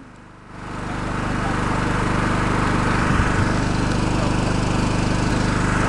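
Engines of a pack of enduro motorcycles running at the start line, a steady, dense engine drone that swells up over the first second and then holds.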